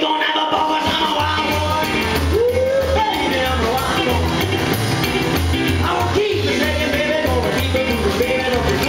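Live rock and roll: a man singing into the mic while playing an electric stage piano, with a pulsing bass line coming in about a second in.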